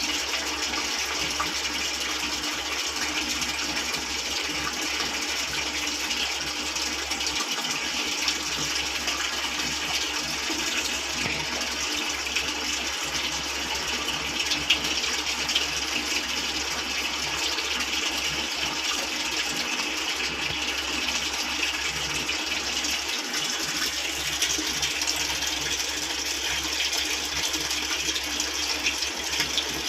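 Steady rush of water pouring into a Midea 6.5 kg washing machine's tub as it fills.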